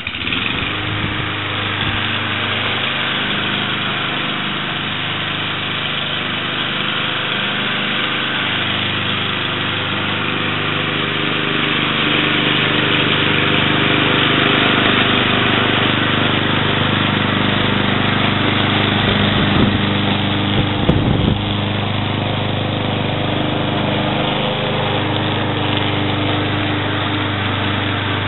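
Ariens 21-inch self-propelled mower's Kohler Courage 173cc engine running steadily while mowing, growing somewhat louder partway through, with a few brief low rumbles about two-thirds of the way in.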